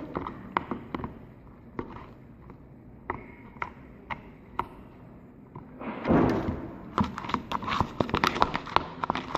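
Homemade jelly-textured slime being handled, squeezed and poked, giving scattered small clicks and pops. About six seconds in there is a louder, longer noisy sound, followed by a rapid run of pops.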